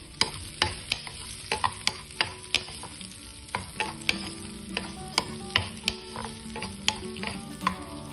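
A spoon stirring chopped nuts, seeds, black raisins and chopped figs in hot ghee in a pan. Irregular clicks and scrapes of the spoon on the pan sound over a light sizzle.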